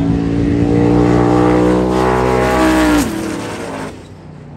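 Drag-racing pickup trucks running down the strip at full throttle, with a loud engine note climbing steadily in pitch. About three seconds in the note drops sharply, and the sound fades soon after.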